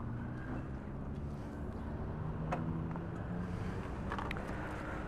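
Motor vehicle engine idling, a steady low hum, with a couple of faint clicks.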